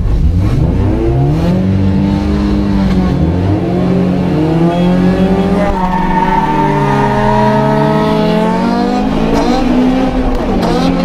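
Honda four-cylinder engine accelerating hard from a drag-race launch, its revs climbing from the start, then dropping and rising again through gear changes.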